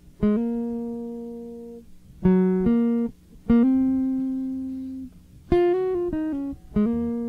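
Solo guitar opening a song: short phrases of plucked single notes, each a couple of quick notes sliding into a held note that slowly fades, about five phrases with brief gaps between.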